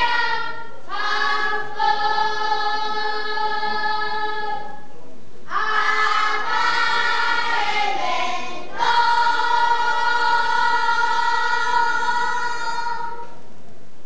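A group of children singing together in Taiwanese Hokkien. There are three phrases, each ending on a long held note, and the singing stops about a second before the end.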